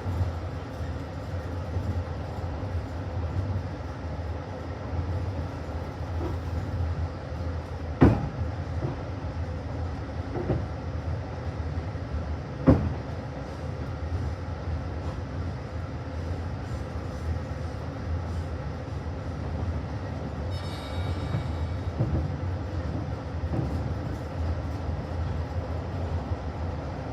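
TN4 passenger train running, a steady low rumble of the moving carriage, with two sharp knocks about 8 and 12½ seconds in.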